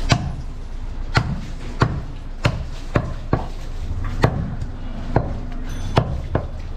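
A large butcher's knife chopping goat meat and bone on a wooden stump block: about a dozen sharp chops, roughly two a second and unevenly spaced.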